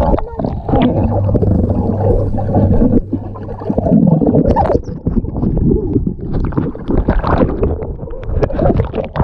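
Bath water sloshing and bubbling, heard muffled through a camera held underwater in the tub, with knocks and swells as bodies move, and a low steady hum for about two seconds near the start.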